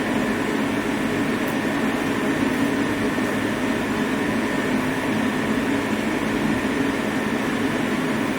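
Steady hum of running factory machinery, an even drone with no breaks or sudden sounds.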